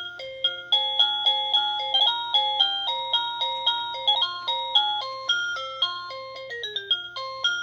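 Electronic doorbell chime (OhmKat video doorbell chime) playing one of its built-in melody tunes. It is a quick run of clean beeping notes, about four a second, rising and falling in pitch.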